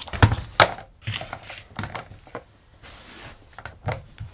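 A digital kitchen scale and a plastic bucket being set down on a hardboard sheet: two sharp knocks in the first second, then lighter knocks and taps.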